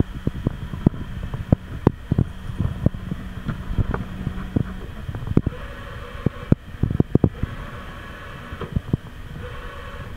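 CNC lathe axis drives whirring as the carriage and turret are jogged along the bed, the whine starting and stopping in short spells over a low machine hum. Frequent sharp clicks and knocks sound throughout.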